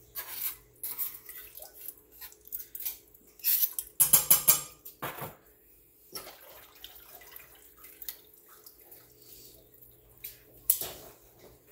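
Metal tongs clinking and scraping against a small stainless steel bowl and the rim of a stainless steel stock pot as minced garlic is knocked into the pot, then stirring inside it. A rattling clatter about four seconds in is the loudest part, and there is a single sharp knock near the end.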